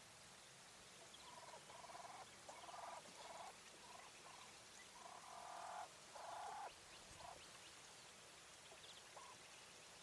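English White Coturnix quail hen calling: a faint run of about eight short calls in quick succession, the longest and loudest just past the middle, followed by a single small note near the end.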